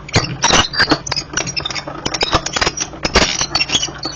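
Metal cutting die and cardstock being handled for die cutting: a run of irregular clicks, clinks and paper rustles.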